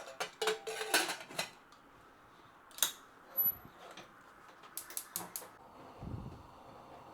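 Sharp clicks and clatter of metal cookware and utensils being handled: a quick run of clicks at the start, a couple more around three seconds, another short run around five seconds, then a low thump about six seconds in.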